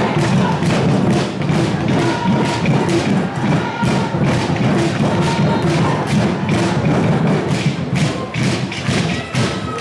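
Loud background music with a heavy, steady beat.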